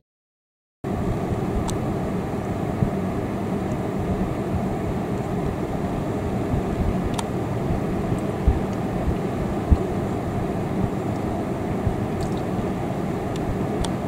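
Steady low rumble of outdoor background noise, starting after a brief dropout, with a few faint clicks.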